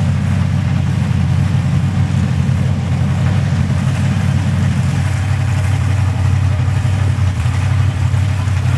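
Engine idling steadily and loudly, its low note thinning slightly about five seconds in.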